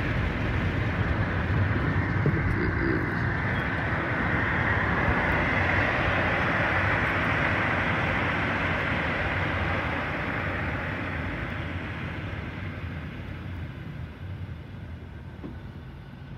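Car road noise heard from inside a moving car: a steady rush of tyres and wind over a low rumble, fading gradually over the last several seconds.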